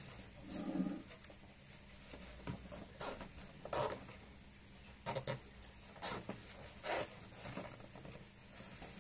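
Fabric waist bag being handled and rummaged through by hand: cloth rustling and rubbing, with several short louder rustles at irregular intervals.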